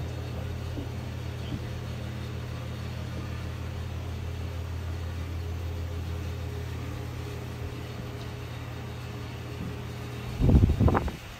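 Steady low machinery hum, like the ventilation or air-handling plant heard inside the steel compartment of a museum submarine. About ten seconds in, a short loud jumbled burst lasting under a second stands out above it.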